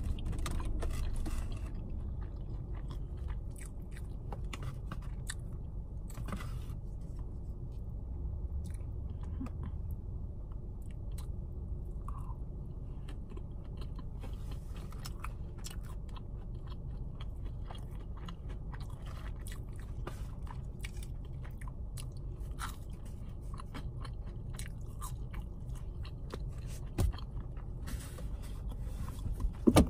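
A person chewing and biting a fried chicken tender meal close to the microphone, with small crunches and mouth clicks over a steady low rumble inside the car. Two sharp knocks come near the end.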